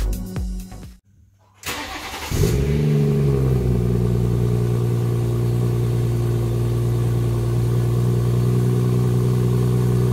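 BMW F30 340i's 3.0-litre turbocharged straight-six starting: a short burst of the starter about two seconds in, the engine catches with a brief flare of revs that quickly settles, then idles steadily, heard close to the twin exhaust tips.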